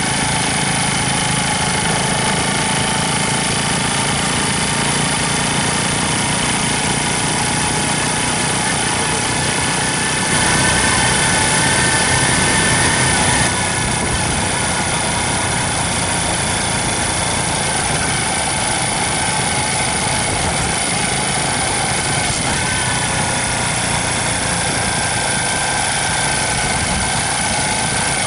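Small Honda motorcycle engine running steadily as it rides, heard close from a camera mounted on the bike, with wind and road noise. It gets louder for about three seconds a third of the way in.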